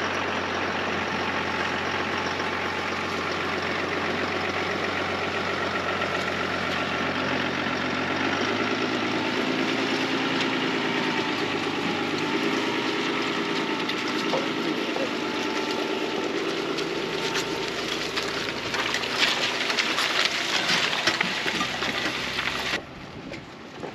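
Four-wheel drive engine running under load in low-range four-wheel drive while towing a caravan through soft, slippery mud. The engine note rises about eight seconds in, and the sound cuts off abruptly near the end.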